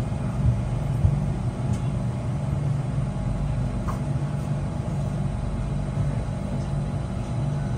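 Steady low hum of a driverless MRT train standing at a platform with its doors open, its onboard equipment running, with a couple of light knocks in the first second or so.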